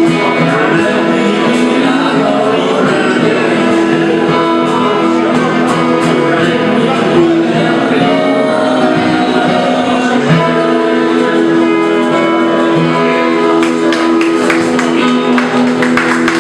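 Live band music: a voice singing over guitars.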